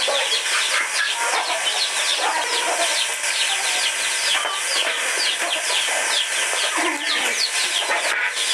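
Chickens clucking, with many short, high falling peeps in quick succession.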